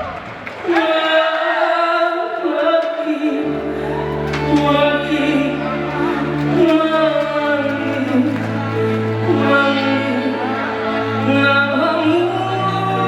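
A Malay pop song sung live with band accompaniment. The voice carries a held, bending melody, and sustained low accompaniment comes in about three seconds in.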